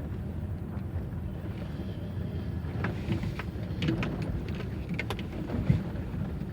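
Chevrolet Aveo T250 driving slowly through a right turn, heard from under the hood: a steady low road and running rumble with several light sharp knocks from the front suspension in the middle, the knock the owner traces to the upper strut mount.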